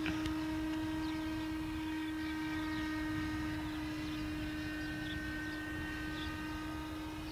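Motor and propeller of a small radio-controlled model plane flying overhead, a steady drone held at one pitch.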